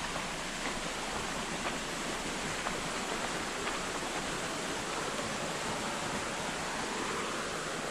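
Steady rushing of a forest stream, with faint footsteps on the trail about once a second.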